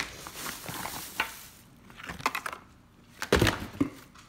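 Plastic bags rustling and cosmetic packaging clattering as it is sorted by gloved hands, with scattered light clicks and one louder knock about three seconds in as a chrome jar lid is set down on the countertop.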